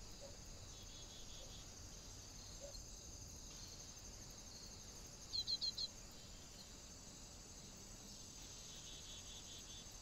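A steady high-pitched chorus of insects such as crickets, with a small bird giving four quick, loud chirps about five and a half seconds in.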